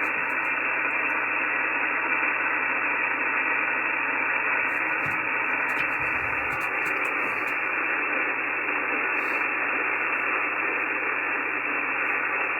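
Amateur radio transceiver on the 17 metre band receiving a steady hiss of band noise through its narrow single-sideband passband, with no clear station coming through.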